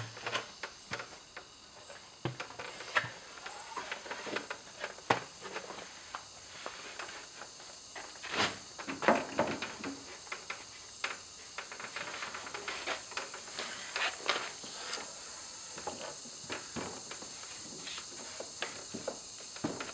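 Long one-by-three wooden boards knocking and clattering against each other and against the plywood base as they are handled and stood upright, in irregular knocks with a louder cluster about eight to nine seconds in, over a steady hiss.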